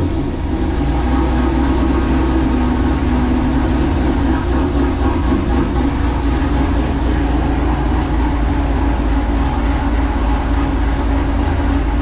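Fifth-generation Camaro SS's 6.2-litre V8, fitted with an aftermarket camshaft, idling with a lumpy, uneven lope from the cam.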